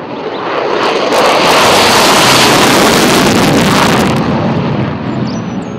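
F-16 fighter jet taking off on afterburner: loud rushing jet-engine noise that swells over about the first second and a half, holds, then fades away near the end.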